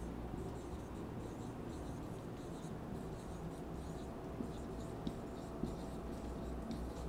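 Marker pen scratching on a whiteboard as a sentence is handwritten, in short strokes with brief pauses between them, over a faint steady room hum.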